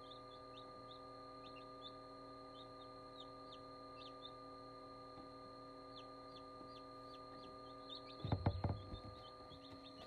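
Newly hatched chicks peeping: a running string of short, high, falling chirps over a steady incubator hum. About eight seconds in there is a brief cluster of louder bumps.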